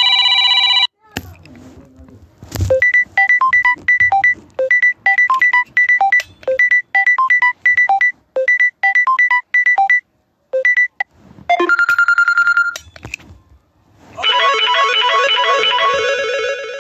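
Phone ringtones played one after another, each cut off after a few seconds: a brief electronic chime, then a quick repeating beeping melody lasting about eight seconds, a short tone, and a fuller synth melody near the end.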